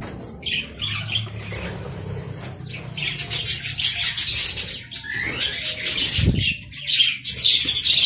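Budgerigars chattering and squawking in rapid scratchy strokes, getting louder and busier from about three seconds in, with wings fluttering. A single dull thump about six seconds in.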